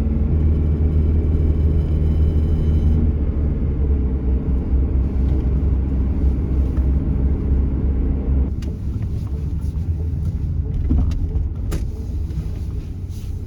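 1997 Chevy S10 pickup driving, its engine a steady low drone over road noise, running quietly with the timing-cover rattle cured. About two-thirds of the way in the drone drops, and a few sharp clicks and knocks follow.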